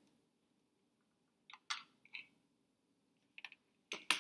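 A few short, light clicks and taps from working a hot glue gun over the cardboard and lid: a small cluster about one and a half seconds in, and another near the end, the last one the loudest.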